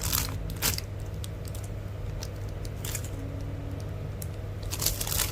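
Light handling noises of squishy toys and their plastic packaging: a few short clicks in the first second and a run of rustling near the end, over a steady low hum.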